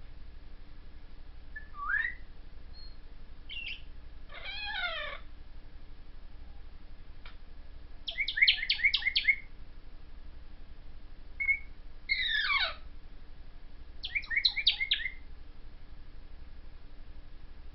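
Congo African grey parrot whistling and chirping in short bouts with pauses between: a rising whistle, a couple of falling calls, and two quick runs of sharp chirps.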